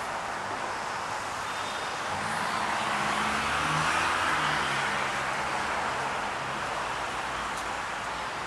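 City street traffic: a steady hiss of road traffic, with a motor vehicle's engine passing close, loudest about three to four seconds in and fading after.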